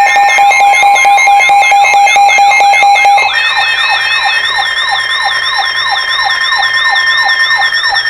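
Emergency Alert System warning tones played over a broadcast. A steady, piercing alert tone stops about three seconds in. Layered over it is a siren-like sweeping tone that repeats about two and a half times a second and keeps going.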